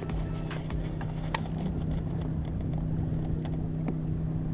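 Steady electric hum, most likely the bass boat's bow-mounted trolling motor, with a few sharp clicks, the loudest about a second and a half in, as a bass is reeled in on a baitcasting reel.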